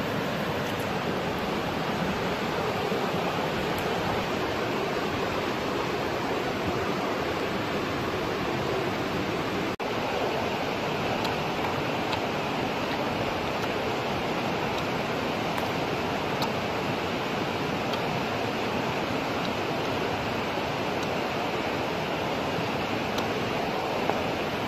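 Steady, even rushing noise like running water, which cuts out for an instant about ten seconds in.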